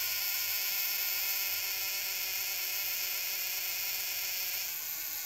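Minori clockwork camera self-timer running down its delay: the spring-driven escapement gives a steady, even buzzing whir as it counts down toward tripping the shutter.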